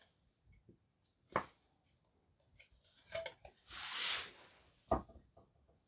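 Small objects being handled on a tabletop: two sharp knocks, a few light clicks and a brief rustle.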